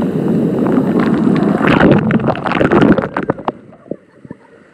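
Loud splashing of water showering down from above onto the river and the inflatable tubes, a dense spatter of drops that stops about three and a half seconds in.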